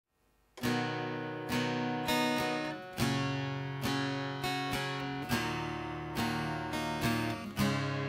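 Acoustic guitar strummed in a steady, even rhythm of chords, starting about half a second in.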